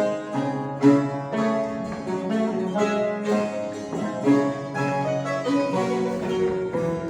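Mandolin ensemble playing a classical-style piece: a running melody of plucked notes over a lower bass line.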